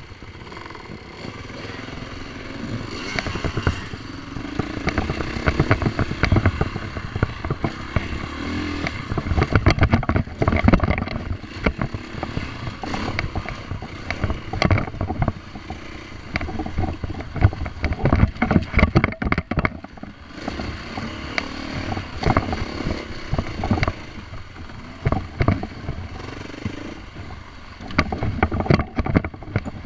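Husqvarna dirt bike engine running and changing pitch as it is ridden along a rough trail, with frequent knocks and rattles from the bike jolting over the ground.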